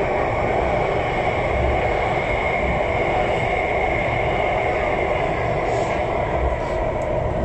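Alstom Metropolis C751A metro train running at speed, heard from inside the carriage: a steady running noise of wheels on rail with a high whine held over it.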